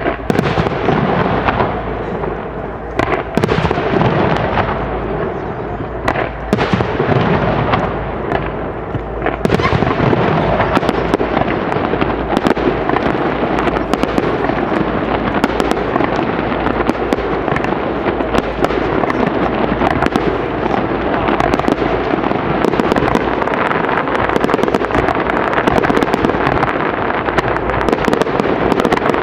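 Aerial fireworks in a rapid barrage, bursting in quick succession with crackling. The bursts grow denser and almost continuous about a third of the way in.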